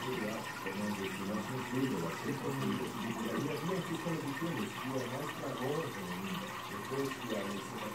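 Steady splashing and trickling of aquarium water falling back into the tank from the filter outlet at the surface, with a low murmur of voices behind it.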